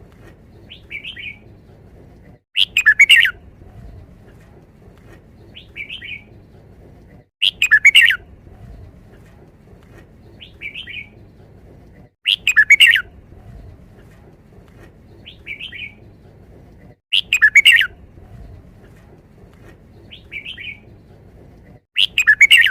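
Red-whiskered bulbul singing its five-syllable 'wild song' phrase, repeated about every five seconds, with a fainter short chirp between phrases.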